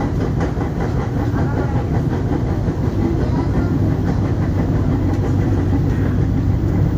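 Seoul Subway Line 1 electric train, a steady low rumble that holds even throughout.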